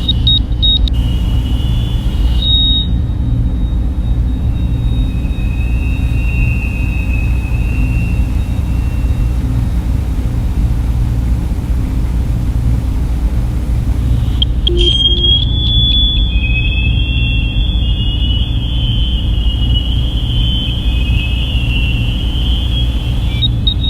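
Sci-fi ambient soundscape: a steady, deep brown-noise rumble standing in for a starship's reactor hum, with faint, high electronic tones drifting over it. About fifteen seconds in, a brighter, wavering electronic tone comes in and carries on.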